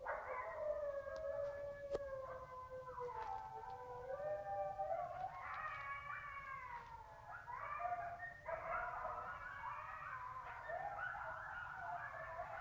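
A pack of wolves howling in chorus, several long howls overlapping and gliding up and down in pitch. From about eight seconds in the chorus turns choppier, with many short broken calls.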